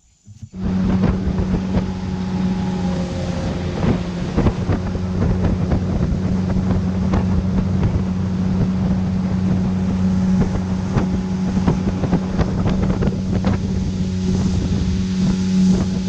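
Outboard motor of a river canoe running steadily at cruising speed, with wind buffeting the microphone. It starts abruptly about half a second in.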